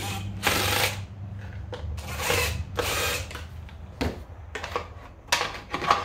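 DeWalt cordless impact driver spinning out the loose top-cover screws of a Poulan Pro chainsaw, in three short bursts in the first half. After that come several sharp plastic clicks and knocks as the cover is handled and lifted off.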